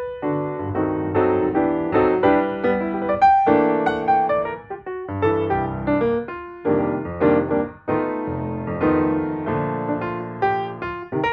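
Background piano music, with notes struck in a running melody over lower chords.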